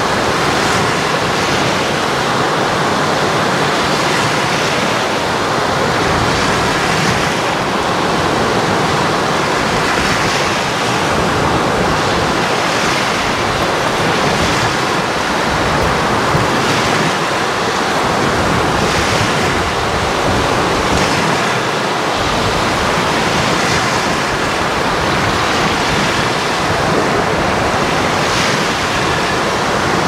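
Choppy Black Sea surf breaking and washing up the shore. A steady rush of water swells with each incoming wave every few seconds.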